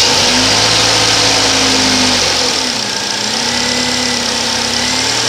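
2008 Saturn Vue engine idling just after starting, running on a newly fitted throttle body. The idle sags briefly about two and a half seconds in, then settles back to a steady speed.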